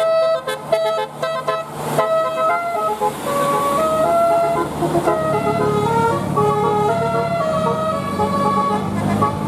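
Basuri telolet horn on a bus, a multi-tone musical air horn, playing a tune of pitched notes that step up and down. It starts with quick short toots, then moves to longer held notes.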